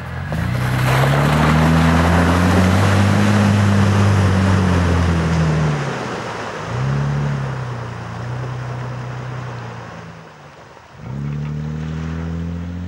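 Four-wheel-drive engines revving on a muddy track, with a wash of tyre and mud-splash noise. One vehicle's engine revs up and back down, picks up again about six and a half seconds in and fades away; near the end a second engine comes in, rising in pitch.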